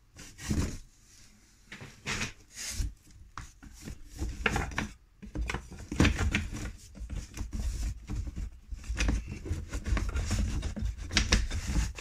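Loose wooden beehive frame pieces knocking and rubbing against each other and the cardboard box as they are handled, a run of irregular knocks and scrapes.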